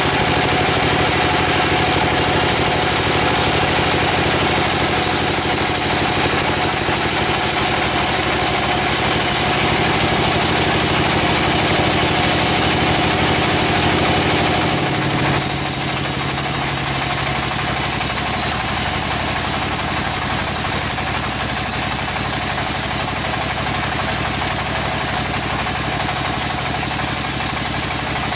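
Vertical band sawmill running and sawing along a log on its carriage: a steady machine drone under a dense hiss. About halfway through, the sound shifts and a much stronger high hiss comes in.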